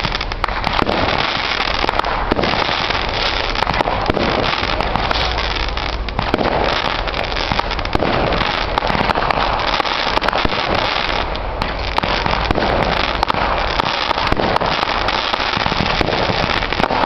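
Aerial fireworks going off in quick succession: a dense, almost unbroken run of bangs and crackling as shells are launched and burst.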